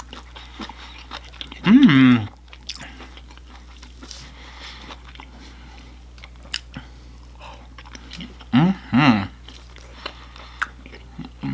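Close-miked chewing and crunching of battered orange chicken, with many small wet clicks of the mouth. Two brief hummed vocal sounds break in, about two seconds in and again near nine seconds.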